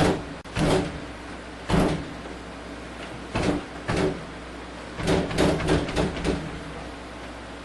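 Irregular knocks and thumps from a television set being handled and banged on, about eight in all and most of them bunched in the second half, over a steady low hum.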